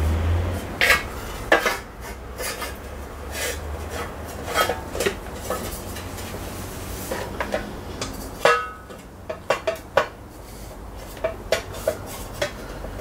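Fabricated metal battery box being handled and pushed against a motorcycle frame while it is test-fitted: irregular metallic clanks, knocks and scrapes, with a few sharper strikes.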